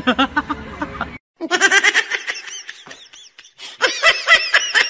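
People laughing in quick repeated bursts, with a brief cut to silence a little over a second in before the laughter starts again.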